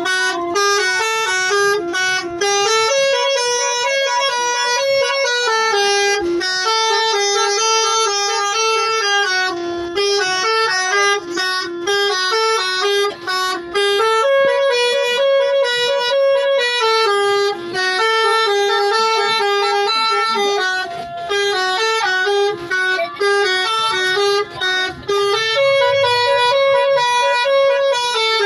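A bus's telolet horn, a multi-trumpet air horn, playing a melody of stepped notes without pause, the same phrase coming round about every eleven seconds.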